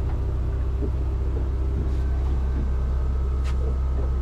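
A steady low rumble on board a small pilothouse boat, with a single sharp click about three and a half seconds in.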